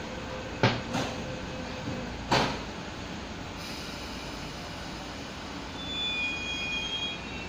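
Metro-Cammell-built MTR Mid-Life Refurbished electric train at a standstill, its equipment giving a steady hum. Three sharp clunks come in the first two and a half seconds, and faint high tones sound near the end.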